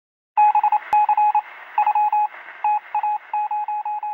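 Morse code sent as a single beeping tone, keyed on and off in quick short and longer pulses over a band of radio static hiss, starting about half a second in.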